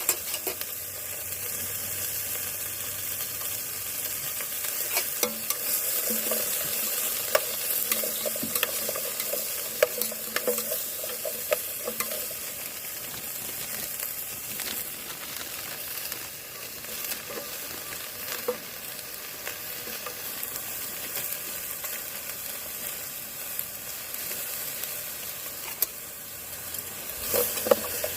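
Food frying and sizzling in a pan: a steady hiss with many small pops scattered through it.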